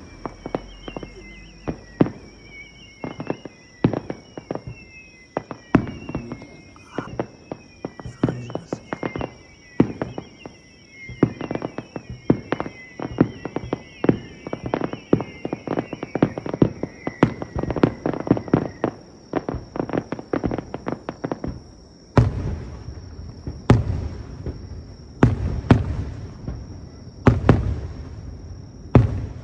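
Fireworks display: a dense run of sharp bangs and crackles, with many whistles falling in pitch over the first half. From about two-thirds of the way through, heavier deep booms come every second or two.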